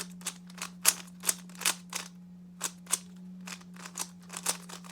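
Plastic Rubik's cube being turned quickly by hand: a string of sharp, irregular clicks, about three or four a second, as the layers snap round, over a steady low hum.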